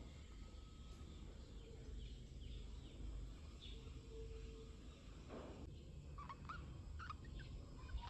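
Faint, scattered short chirps and squeaks from small animals, more frequent in the second half, over a low steady hum.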